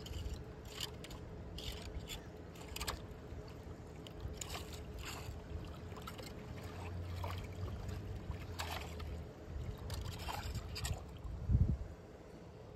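Small hand rake scraping and dragging wet leaves and muck at a clogged storm drain, in short irregular strokes, with water sloshing and trickling into the drain. A heavy low thump comes near the end.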